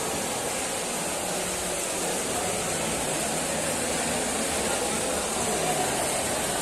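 Steady ambience of a railway station hall: an even hiss with faint, indistinct voices in the background.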